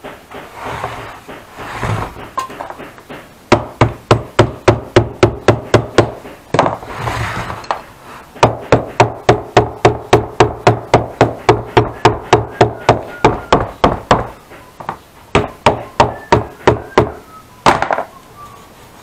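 Hammer tapping rapidly on a saddle's cantle while a reinforcement is fixed to it, about four strikes a second in two long runs. It starts after a few seconds of softer noise and ends with a few slower strikes and one louder one near the end.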